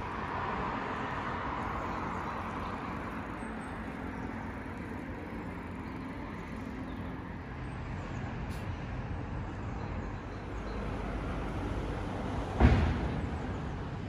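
Steady hum of city road traffic, a little louder in the first couple of seconds, with a single sharp thump near the end.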